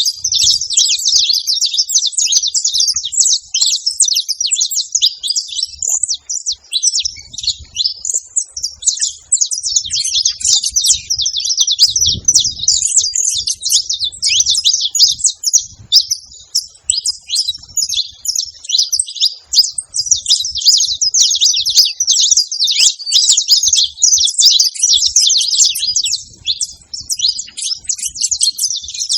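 A group of saffron finches chirping together, many short overlapping calls in a continuous chatter.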